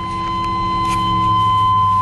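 Chevrolet Silverado 3500's 5.7-litre V8 idling, with a steady high-pitched warning tone from the cab sounding loudly over it.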